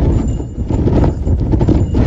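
Strong gusting wind buffeting a phone's microphone, a heavy rumbling roar that dips briefly about half a second in.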